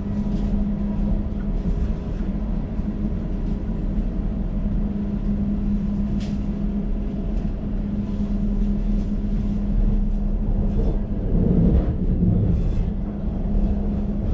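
Elizabeth line Class 345 train running, heard from inside the carriage: a steady low rumble under a constant hum, with an occasional click from the track.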